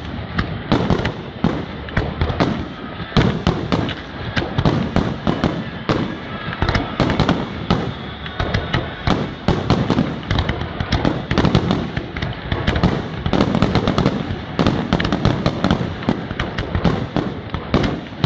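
Aerial firework shells bursting in a dense, continuous barrage, several bangs a second overlapping one another: the finale of a fireworks display.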